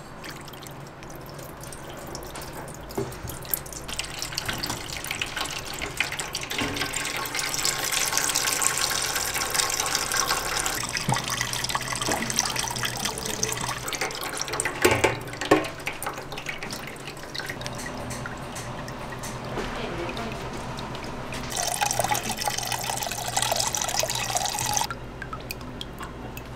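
Melted ghee butter being strained through a paper-towel-lined mesh strainer, trickling and dripping into a stainless steel tray, with a couple of sharp knocks about halfway through.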